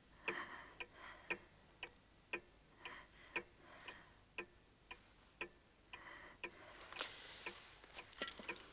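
A clock ticking steadily and quietly, about two ticks a second.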